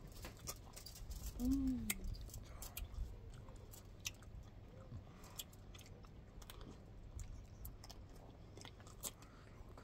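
People eating ice cream close to the microphone: soft chewing and lip smacks with scattered small sharp clicks, and a short hummed 'mm' about one and a half seconds in.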